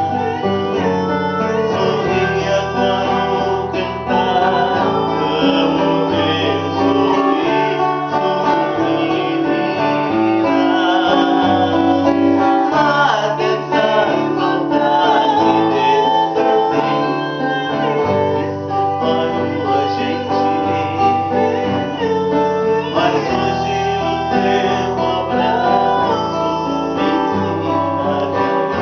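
Acoustic guitar played in chords, the bass changing every second or two, with a woman singing the melody over it.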